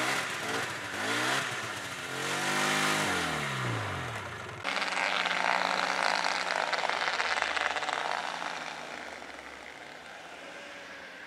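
Old Safari snowmobile's two-stroke engine running just after its first start of the season, revved up and down several times. After a sudden change about four and a half seconds in, it pulls away and fades into the distance.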